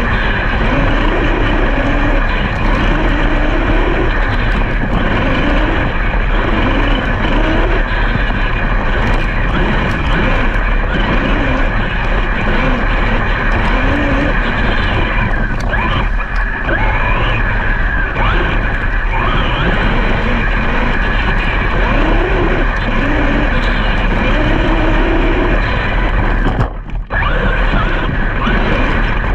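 Brushless electric motors of large RC off-road trucks whining and revving up and down in quick pitch glides, over a steady low rumble. The sound drops out briefly near the end.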